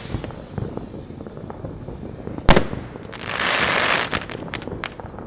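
Fireworks and firecrackers going off: a scatter of small pops, one sharp loud bang about two and a half seconds in, then about a second of dense hissing crackle followed by a quick run of pops.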